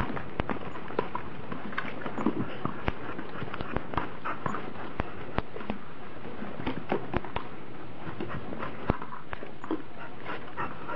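Dogs at play with a ball, making short vocal sounds among a scatter of irregular sharp knocks and taps.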